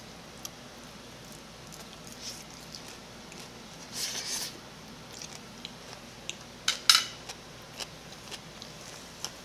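Metal fork and spoon clicking against plastic bowls while eating, with scattered small clinks. There is a short noisy mouthful sound about four seconds in, and two sharp clinks, the loudest sounds, just before seven seconds.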